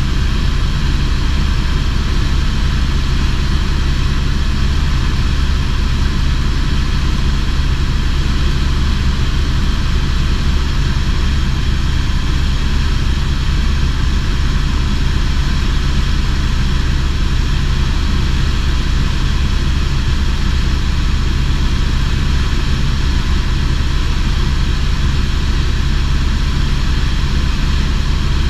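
Helicopter in level flight heard from inside the cabin: a loud, steady drone of rotor and engine that does not change.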